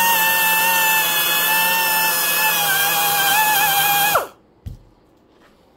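Rotary tool with a small wire brush spinning against the corroded inside of a Homelite XL922 chainsaw crankcase, scrubbing off scale: a loud, steady high-pitched whine that winds down and stops about four seconds in.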